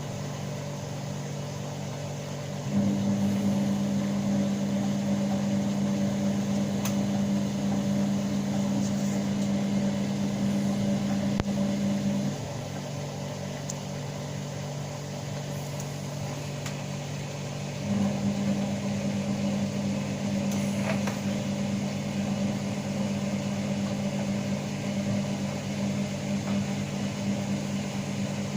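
Balay T-8295 washing machine on its spin cycle: a steady mechanical hum, with a louder, deeper hum that comes in about three seconds in, drops out about twelve seconds in, and comes back about eighteen seconds in.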